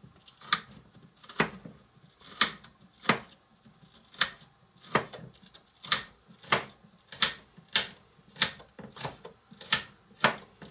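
Small knife slicing red onion into thin strips on a small wooden cutting board: a crisp tap of the blade through the onion onto the board about every two-thirds of a second, around fourteen cuts in all.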